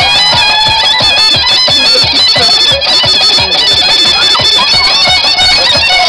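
Turkish folk line-dance music: a high, wavering melody over a steady drum beat of about two to three strokes a second.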